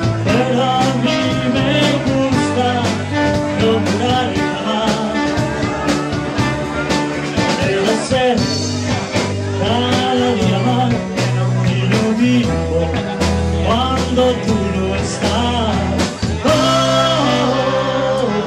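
Live band playing an instrumental passage of 1960s-style rock and roll, with a trombone carrying the melody over electric guitars.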